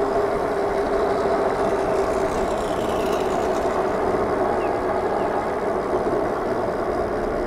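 Super73 RX fat-tire e-bike riding at steady speed: a steady whine from its electric motor over road noise from the tires and wind on the microphone.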